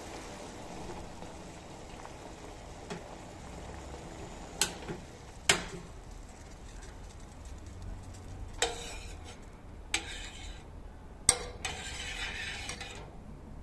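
Burdock seed decoction simmering in a stainless steel saucepan on a portable gas stove, with a steady bubbling hiss. Sharp clinks sound every second or so through the second half; the later ones, loudest about eleven seconds in, are a metal spoon knocking against the pan as it stirs the reduced, darkened liquid.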